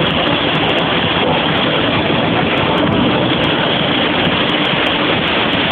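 Jet engine of the Fire Force 3 jet car running steadily, a loud even rushing noise.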